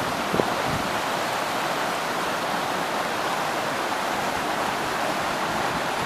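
Small mountain stream rushing down a rocky cascade: a steady, even rush of water.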